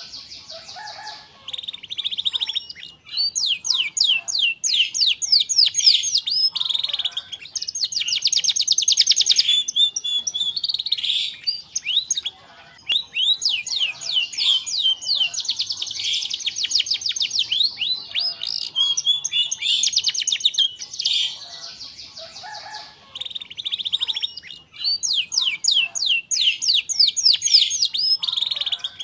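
Domestic canary singing long phrases of very fast, rolling trills, broken by a few short pauses.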